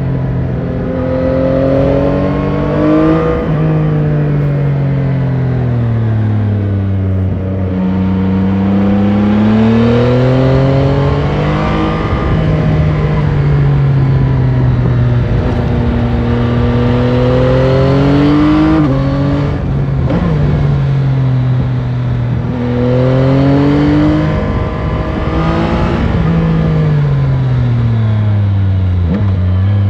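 Yamaha Tracer 9 GT's 890 cc three-cylinder (CP3) engine with its stock exhaust, heard onboard while riding. The revs climb and fall again and again, dropping suddenly at gear changes and sinking more slowly when the throttle is eased off.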